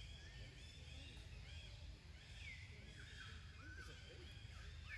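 Faint high-pitched animal calls, short chirps repeating at irregular intervals with a falling call about halfway and a rising one near the end, over a low steady rumble.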